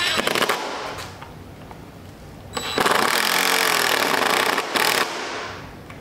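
DeWalt cordless driver sinking a long screw through a metal striker plate into a wooden door jamb, in two runs: a short one at the start and a longer one from about two and a half to five seconds in.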